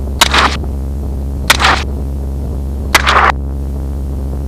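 Three rifle shots about a second and a half apart, each a sharp crack with a short trailing report, fired from a helicopter over the steady drone of its engine and rotor.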